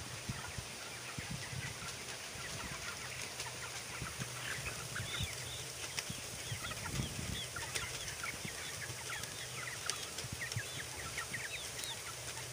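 A large flock of young broiler chickens peeping and cheeping all at once, many short high chirps, as they crowd around the pan feeders to eat. A steady low hum and scattered soft thumps run underneath.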